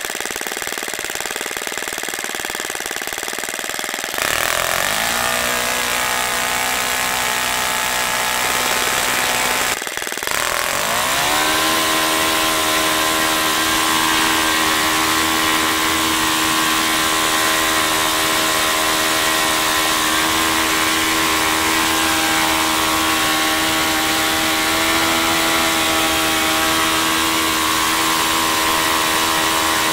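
OS FS-30 Surpass single-cylinder four-stroke glow engine, with a newly replaced valve spring, running on a test stand. It idles at first, speeds up with its pitch rising about four seconds in, and after a short break near ten seconds rises again and holds a steady high-rpm run of about 9,500 rpm. It runs smoothly, a sign the valve-spring failure is fixed.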